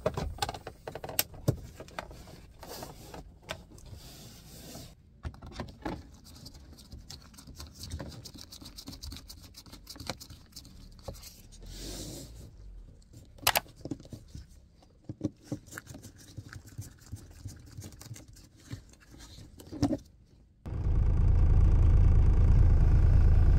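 Plastic dashboard trim being fitted back over a DAF truck's instrument cluster by hand: a long run of scattered clicks, knocks and scrapes. About 21 seconds in, the truck's diesel engine comes in idling steadily, much louder than the trim work.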